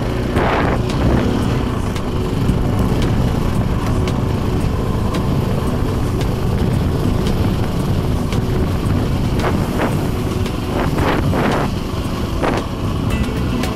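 KTM motorcycle engine running steadily while riding, with a few short hissing rushes about half a second in and again near the end.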